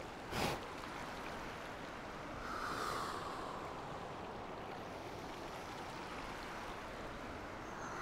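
Mountain river rushing over rocks, a steady even rush that swells slightly about three seconds in. A brief puff of noise sounds just after the start.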